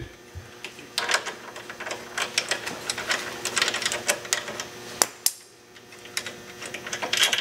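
Irregular light metallic clicks and clinks as a mounting bolt is worked out of an ATV's front brake caliper, with one sharper click about five seconds in.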